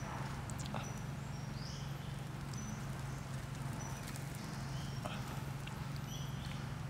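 Sparse, irregular soft taps and clicks as a leafy herb brush dabs sauce onto a corn cob roasting over embers, over a steady low hum, with short high chirps here and there.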